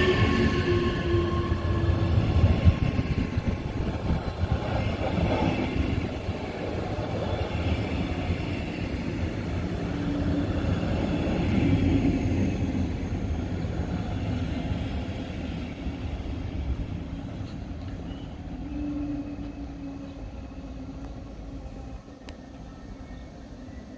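Double-deck regional passenger coaches rolling past: a steady rumble of wheels on rail with faint tones, fading as the end of the train moves away. The sound drops abruptly near the end.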